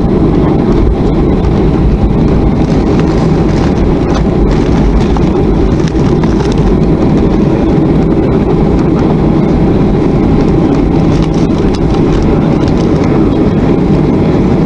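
Cabin noise of a Boeing 737-400 taxiing after landing: the CFM56 jet engine by the window running at idle, a steady low rumble filling the cabin.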